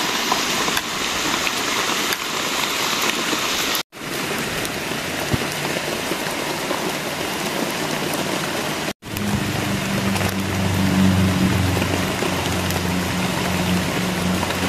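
Steady rain falling, an even hiss of drops on leaves and wet ground, broken off briefly twice. A low steady hum joins the rain for the last few seconds.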